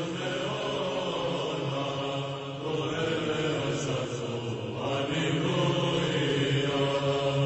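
Slow vocal chanting over a steady, held low drone note, laid in as background music.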